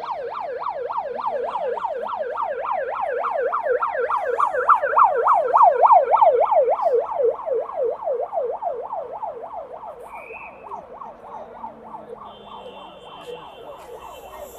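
Convoy escort vehicle's siren in a fast yelp, about four rising-and-falling sweeps a second, growing louder to a peak around the middle and then fading away as it passes.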